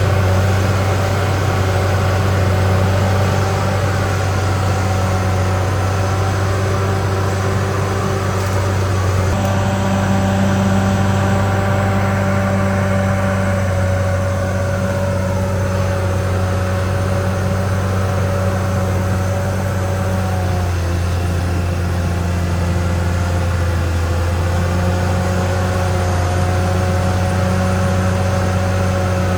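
CAT D6R XL bulldozer's diesel engine running steadily, its pitch shifting slightly a few times.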